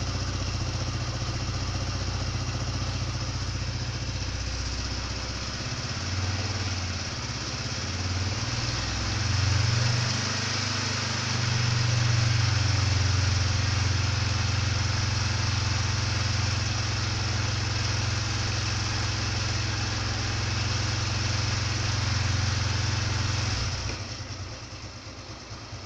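Motorcycle engine running steadily. Its pitch shifts upward and it grows louder a quarter to halfway through as the engine speed picks up. It then holds steady until it fades near the end.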